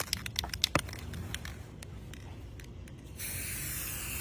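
A run of sharp clicks, then a spray can hissing steadily from about three seconds in.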